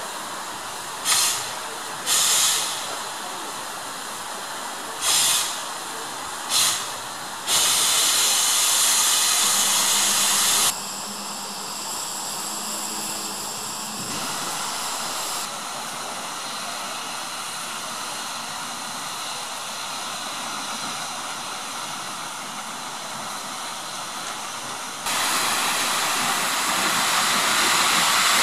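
Steam locomotives hissing as steam vents around their cylinders: a few short bursts of steam in the first seven seconds, then a steady hiss that drops lower in the middle and comes back louder near the end.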